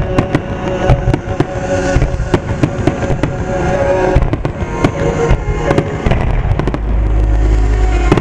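Aerial firework shells bursting in quick succession, many sharp bangs over music playing along with the show.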